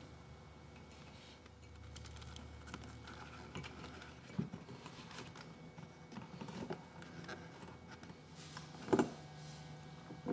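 Scattered light clicks and taps of handling work, with one sharper knock about nine seconds in.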